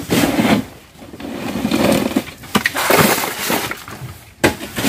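Crushed ice being tipped and scattered onto whiteleg (vannamei) shrimp in plastic crates, heard as several noisy pours with a single sharp knock near the end.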